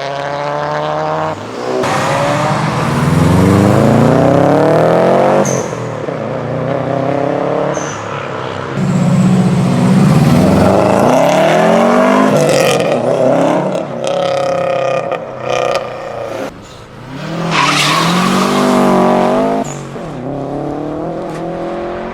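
Subaru Impreza flat-four boxer engines accelerating hard, the engine pitch climbing through the revs several times, with abrupt cuts between separate passes. The exhaust carries the boxer rumble.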